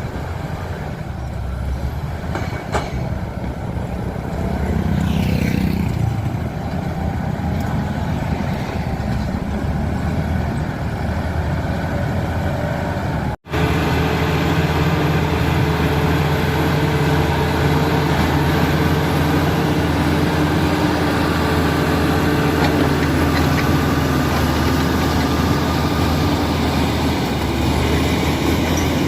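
Komatsu D85E-SS crawler bulldozer's diesel engine running steadily under work, a low even drone. It breaks off abruptly about halfway through, then resumes slightly louder.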